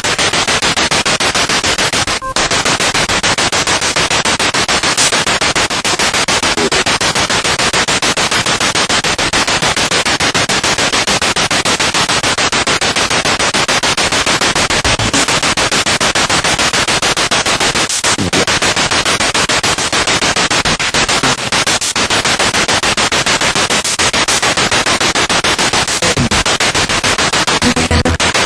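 Spirit box radio scanning through stations: loud static chopped into a rapid, even stutter, with brief fragments of broadcast sound breaking through now and then.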